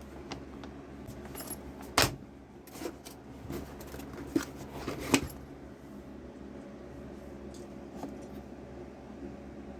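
A handful of sharp clinks and knocks of hard items being handled, the loudest about two seconds in and the last about five seconds in, over a faint steady low hum.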